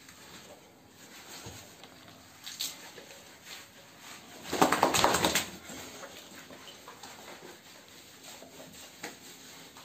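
Hands scrubbing a soaped, wet boxer dog in a shower: quiet wet rubbing and dripping, with a louder noisy burst lasting about a second just before halfway.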